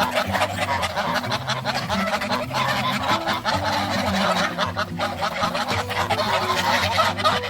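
A flock of domestic geese honking all at once: many overlapping calls in a dense, continuous din.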